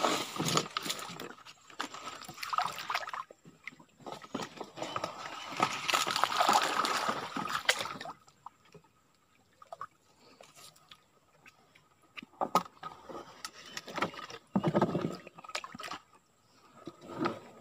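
Water sloshing and splashing around a small boat being moved through a shallow swamp channel, coming in irregular bursts with a quieter stretch about halfway through.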